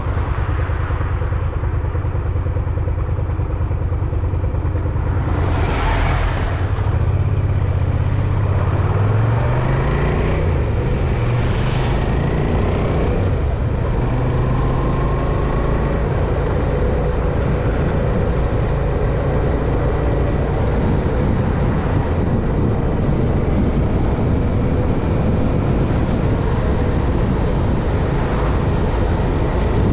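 Motor vehicle engine running over steady road noise, its pitch rising about eight to ten seconds in as it speeds up. Two passing whooshes come about six and twelve seconds in.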